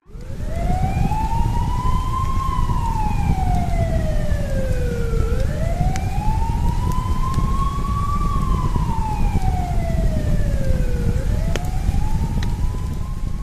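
Emergency siren wailing, its pitch rising slowly and then falling in long sweeps about every five and a half seconds, over a deep steady rumble. It starts suddenly and fades out near the end.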